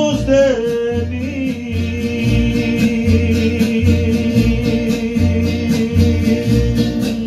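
A man singing into a handheld microphone over a ranchera backing track, holding one long note over the band's regular bass pulse.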